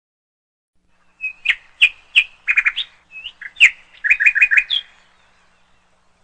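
Bird chirping sound effect: a quick run of short, high tweets, some in fast clusters, starting about a second in and stopping about five seconds in.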